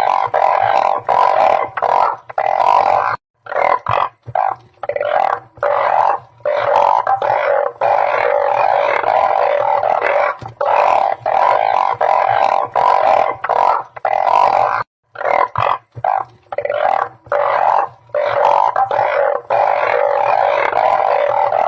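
A chorus of many balloon frogs (Glyphoglossus molossus) calling: loud overlapping droning croaks, broken by a few brief gaps.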